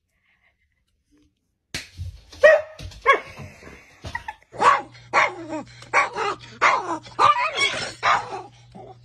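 Near silence for about two seconds, then a black-and-white dog barks sharply a few times. Then a chihuahua barks about eight times in quick succession, high and sharp, over a faint steady hum.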